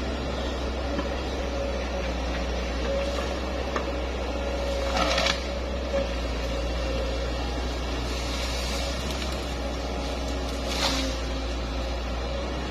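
Hitachi ZX110 excavator running steadily with a low engine drone and a steady hydraulic whine, with two short bursts of hissing, about five seconds in and again near the end.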